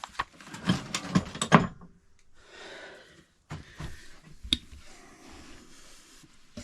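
Hand tools being handled and set down: a quick run of clicks and knocks, then a soft rustle and two more single sharp clicks.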